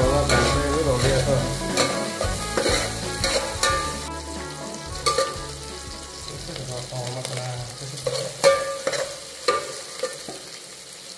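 Sliced onions, chillies and spices sizzling in hot oil in an aluminium pot, stirred with a metal slotted spoon that scrapes and clicks against the pot several times. The sizzle grows quieter toward the end.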